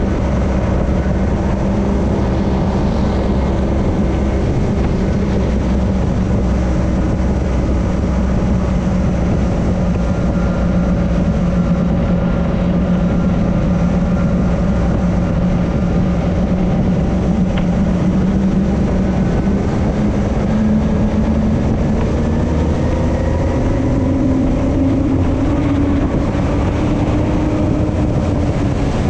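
A powerboat's engine runs steadily at speed over a steady rush of wind and water. Its pitch climbs over the last several seconds as the boat speeds up.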